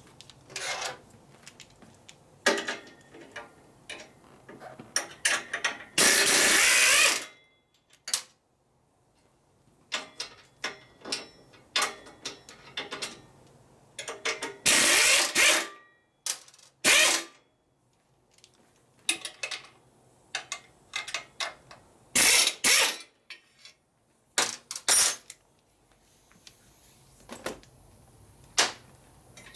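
Hand ratchet wrench clicking in runs of about a second while exhaust pipe bolts are loosened, with scattered clinks and knocks of tools and metal parts between the runs.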